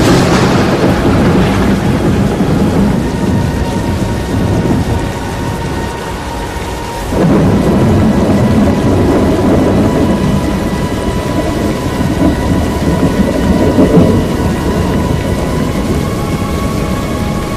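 Tornado storm wind and heavy rain buffeting the microphone in a deep, rumbling roar. The roar eases about four seconds in and comes back suddenly about seven seconds in.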